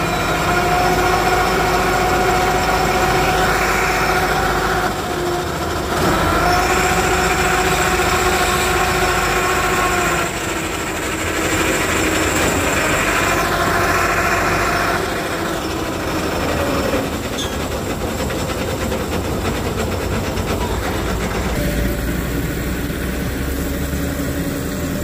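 Heavy diesel tow truck's engine held at raised revs with a steady whine, in three long pushes of about four to five seconds each over the first fifteen seconds, then running more evenly.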